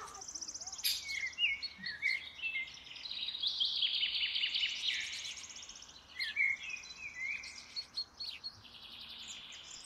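Several songbirds singing and calling at once, with rapid trills and short chirps overlapping, busiest around the middle.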